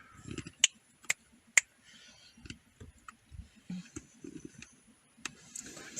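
A few sharp, single clicks, three in the first two seconds and another about five seconds in, over a faint, uneven low rumble.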